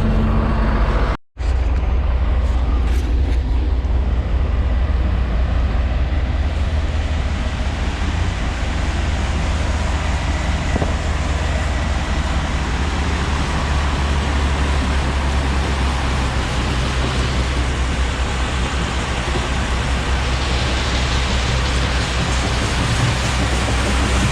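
A farm vehicle driving on the road: steady low engine rumble with road and wind noise. The sound cuts out for an instant about a second in.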